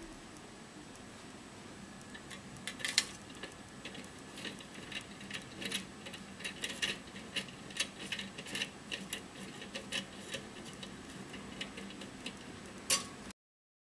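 Irregular light clicks and taps, a few a second, over a low steady hum, with a louder click near the start and another near the end; the sound cuts off abruptly just before the end.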